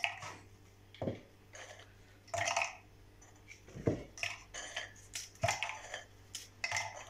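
Dry plain biscuits snapped and crumbled by hand, the pieces dropping into a food chopper's jar: an irregular run of crisp cracks and crunches, about a dozen.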